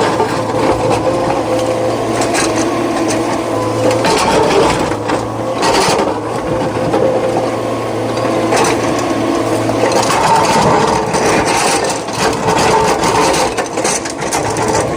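Heavy diesel machinery running steadily in a quarry, with scraping and clattering of rock. The hum dips briefly about four seconds in and again a little after eight seconds.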